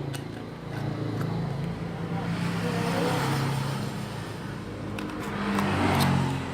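A motor vehicle engine running and passing by, growing louder about halfway through and again near the end.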